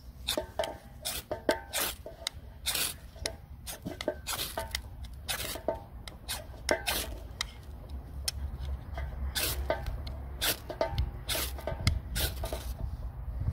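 Ferro rod struck over and over with the spine of a knife: short, sharp metal scrapes about two a second, each stroke throwing sparks onto fatwood shavings that have not yet caught.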